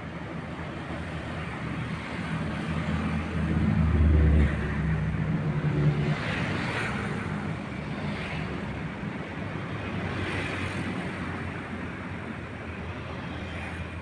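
Boat engine running steadily with a low hum, swelling louder briefly about four seconds in.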